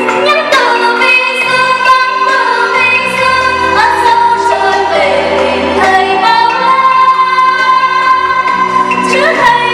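Female voice singing held, sliding notes over instrumental accompaniment, as part of a staged song performance.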